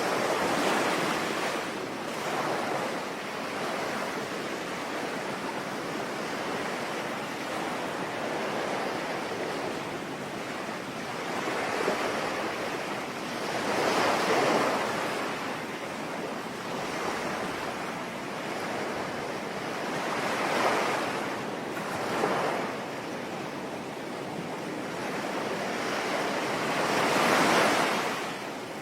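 Sea waves washing ashore over a steady rain hiss. The surf swells and falls every few seconds, loudest near the end.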